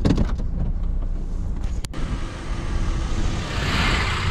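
Lifted 8th-generation Honda Civic running, with a couple of knocks at the start. Then the car rolls over a camera on the ground: tyre and road noise with wind on the microphone, swelling about three and a half seconds in as the car passes overhead.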